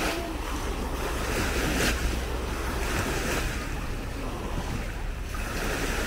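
Small Baltic Sea waves washing onto a sandy shore, swelling briefly at the start and again about two seconds in, with wind rumbling on the microphone.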